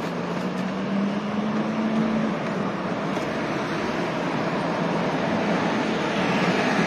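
Road traffic noise: a motor vehicle running, with a steady rush of road noise and a low engine hum that rises slightly in pitch during the first two seconds.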